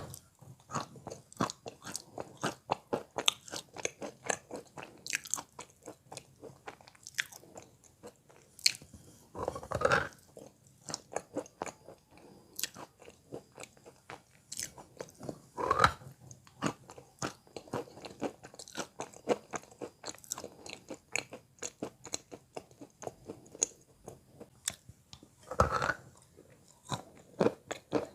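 A person biting and chewing wet Belogorye chalk close to the microphone: rapid, dull, wet crunching, with three louder, longer crunches spaced through it.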